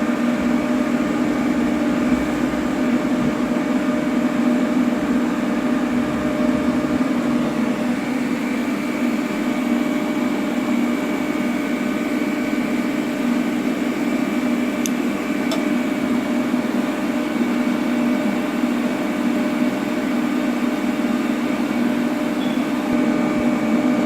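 AC TIG welding arc on aluminum, a loud, steady buzz that holds unbroken as the arc's cleaning action works on the metal during a buildup pass.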